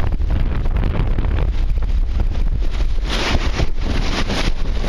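Strong wind buffeting the microphone aboard a Snipe sailing dinghy, over water rushing past the hull; a louder hiss of spray comes about three seconds in.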